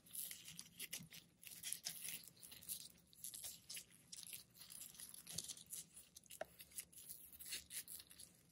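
Electrical tape being pulled off its roll and wrapped around wires and plastic wire loom: a continuous run of irregular, hissy crackles as the tape unwinds.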